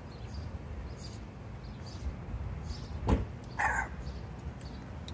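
A man chugging a small glass of beer in gulps, with a sharp knock about three seconds in and a short voiced exhale just after, over a low rumble.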